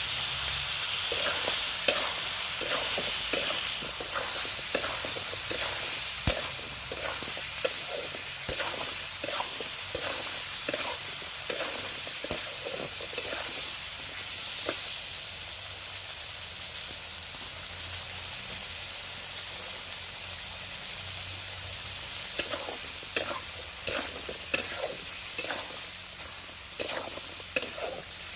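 Chicken frying in hot oil in a pan, sizzling steadily, with a spoon scraping and stirring against the pan over and over.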